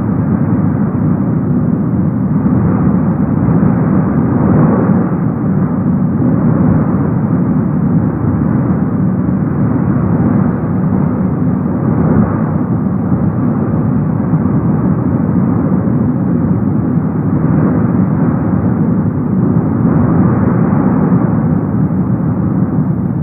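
Cumbre Vieja volcano erupting, its lava fountain giving a continuous deep rumble that stays steady with slight swells in level.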